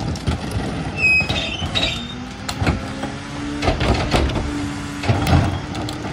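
A McNeilus rear loader's hydraulic cart tipper lifting and dumping a plastic trash cart into the hopper and lowering it, with clanks and knocks of the cart against the tipper over the garbage truck's running engine. A steady drone from the hydraulics starts about two seconds in and holds through the lift.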